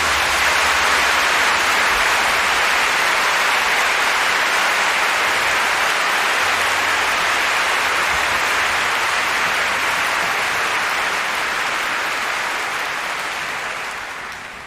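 A large audience applauding steadily, dying away over the last two seconds or so.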